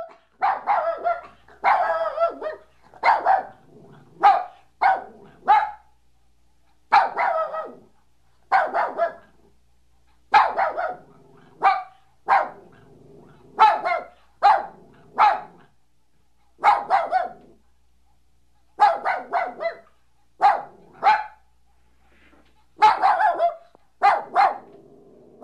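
A dog barking over and over, in single barks and short runs of two or three, with brief pauses between them.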